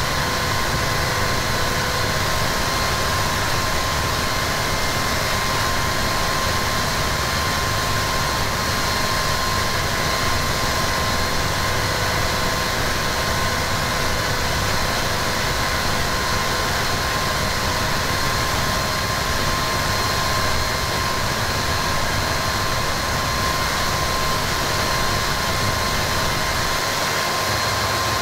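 Harsh noise music played live on a small Korg synth and a cheap radio fed through Boss distortion and octave pedals: a dense, unchanging wall of distorted noise with several steady whistling tones in it.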